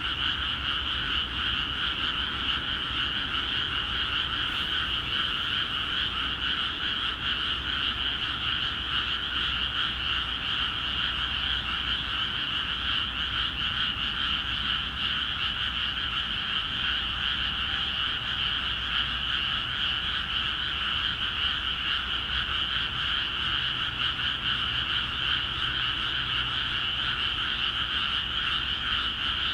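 A dense chorus of many frogs calling without pause from newly flooded rice paddies, a steady high-pitched massed croaking.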